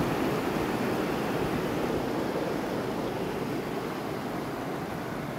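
Fast-flowing floodwater from burst dams rushing over the ground, a steady dense rushing noise that slowly grows quieter.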